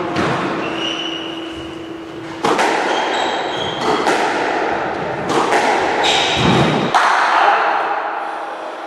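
A squash rally: the hollow rubber ball is struck by rackets and cracks off the court walls about every one to two seconds, each hit echoing in the enclosed court, with short squeaks of court shoes on the wooden floor.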